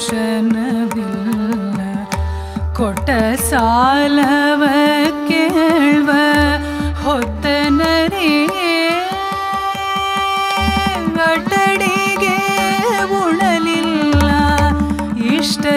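Carnatic devotional song: a woman's voice singing gliding, ornamented phrases, with one long held note in the middle, shadowed by a violin. A mridangam plays clusters of strokes, over a steady drone from an electronic tanpura.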